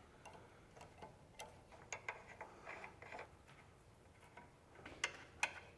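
Faint, irregular light clicks and clinks of small metal hand tools being handled.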